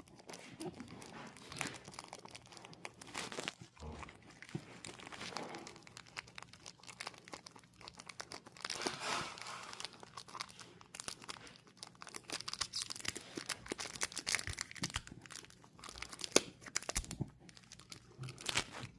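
Welsh corgi eating a crunchy treat: irregular crunching and crinkling with small clicks, no steady rhythm.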